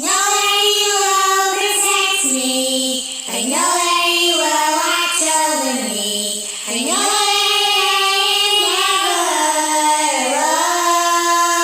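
A high voice singing a melody a cappella, with no instruments, in long held notes joined by sliding pitches, with short breaths about three and six and a half seconds in.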